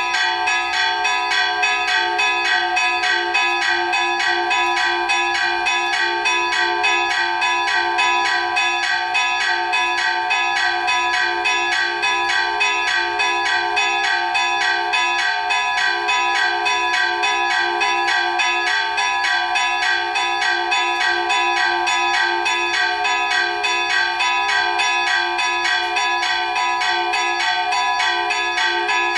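Festive hand-chimed peal on two fixed church bells, an 18th-century bell in F#4 and a 20th-century Marinelli bell in G#4, their clappers pulled by chains. The strikes are rapid and unbroken, and the two pitches ring together. The bells are in poor repair, with the clappers hung on metal cables where the leather straps are missing.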